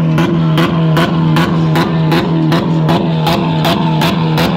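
Honda Civic's four-cylinder engine revved and held high, with a regular stutter about two and a half times a second typical of bouncing on the rev limiter.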